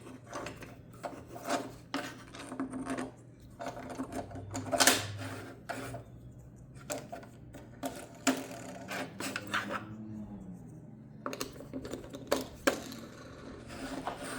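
Handling noises as a 3D-printed featherboard is fitted to a table saw: irregular rubbing, scraping and knocks of plastic and metal parts. A brief falling squeak about ten seconds in.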